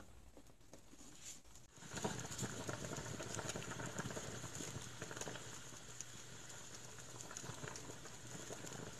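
A pot of chicken sinigang broth boiling, a dense, even crackle of small bubbling pops that starts about two seconds in.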